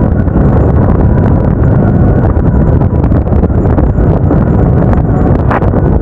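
Motorcycle riding at road speed: steady engine and road noise under wind buffeting the action-camera microphone.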